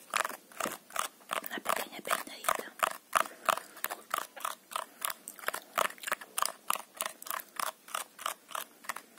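Scissors snipping rhythmically close to the microphone, about three or four snips a second, as in a mimed haircut.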